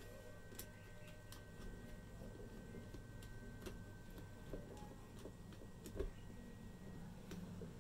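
Faint, irregular clicks and ticks of a small screwdriver turning and seating the terminal screws of a modular changeover breaker while wires are fastened, the sharpest click about six seconds in. A faint steady high whine runs underneath and stops a little past the middle.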